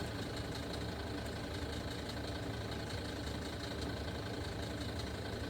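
A steady background hum with a few faint steady tones, unchanging throughout.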